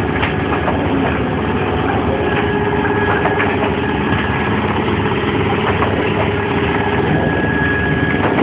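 Automatic biscuit packaging machine running steadily: a continuous mechanical hum with a steady high whine over it.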